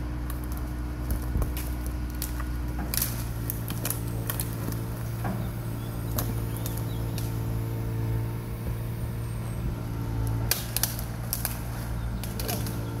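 An engine running steadily with a low hum that steps up in pitch about three seconds in. Sharp snaps and cracks of branches come around three seconds in and again a little before the end.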